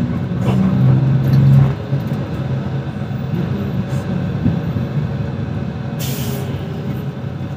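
Bus engine running in city traffic, heard from inside the bus, louder for the first two seconds. About six seconds in comes a short, sharp hiss of air from the air brakes.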